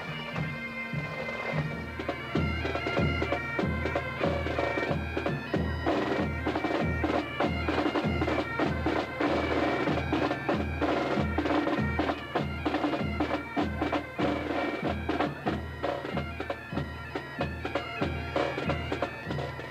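Pipe band playing: bagpipes sounding a melody over their steady drones, joined about two seconds in by a bass drum beating about twice a second.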